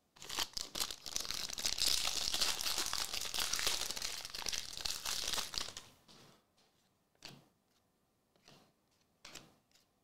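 Crinkling and crumpling of a thin packaging wrapper being handled for about six seconds. It then stops and gives way to a few soft taps of cards being handled.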